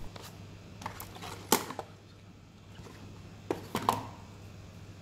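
A few light clicks and taps from a cardboard box and small circuit boards being handled on a tabletop, the two sharpest near the middle and about four seconds in, over a low steady hum.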